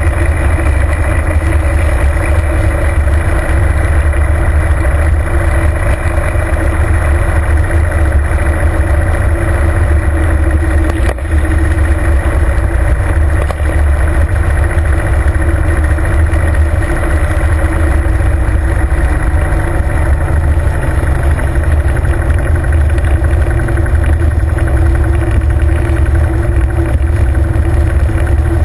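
Harley-Davidson Fat Bob's V-twin engine running steadily while cruising, mixed with wind and road noise over the microphone.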